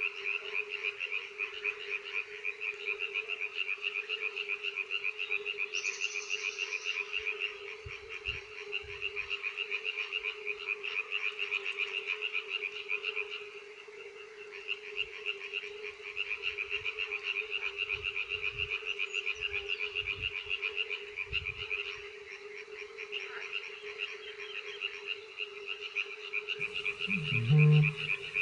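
Night chorus of pond frogs and fire-bellied toads: a dense, rapidly pulsing high-pitched croaking with short lulls over a steady lower hooting. Near the end come two loud, deep booms about two seconds apart, the call of a Eurasian bittern.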